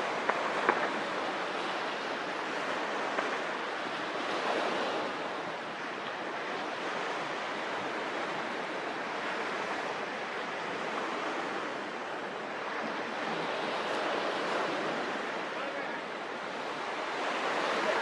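Steady rushing of wind and water, swelling and easing every few seconds, with a couple of faint clicks near the start.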